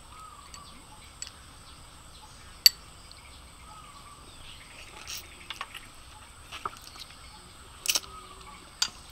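Sharp clicks of grilled clam shells knocking and being pried apart as they are picked from a foil-lined platter, a few scattered through, the loudest about two and a half seconds in. Faint bird chirps underneath.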